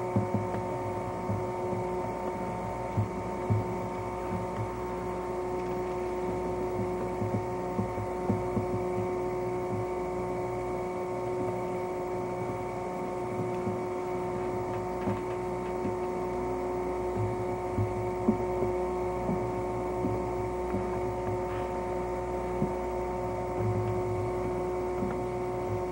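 Steady electrical hum made of several held pitches, over a low rumble with faint, irregular low thumps now and then.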